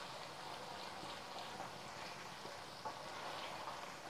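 Paneer cubes shallow-frying in hot oil in a pan on medium flame: a steady soft sizzle and crackle, with one light knock about three seconds in.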